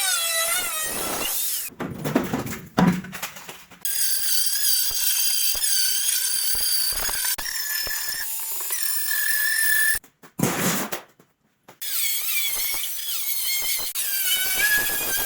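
High, wavering squeal of a power tool working metal, broken twice by short stretches of knocking and a brief lull.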